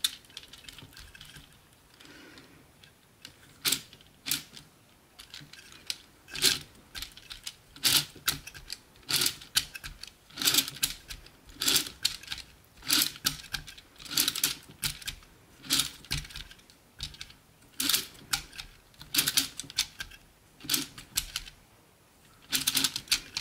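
3D-printed plastic circular sock knitting machine turned by hand: the latch needles click and clatter in their cylinder slots in irregular clusters, roughly one cluster a second, as the cylinder advances through the first round of knitting.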